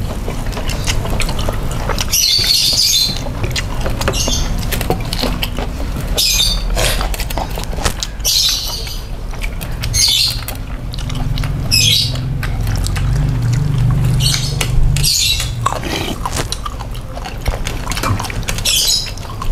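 Close-up eating sounds of a meal of chicken wings and rice: chewing and lip smacking with many small clicks, and a short crisp crunch or slurp every second or two.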